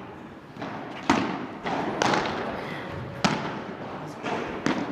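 Padel rally: a padel ball hit back and forth with padel rackets, a sharp pop roughly every second, with ball bounces in between.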